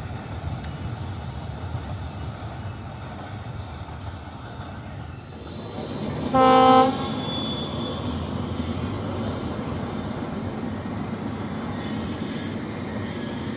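Indian Railways train running with a steady low rumble; about six seconds in, a locomotive horn sounds one loud, short single-tone blast lasting about half a second, and the rumble of a moving train carries on after it.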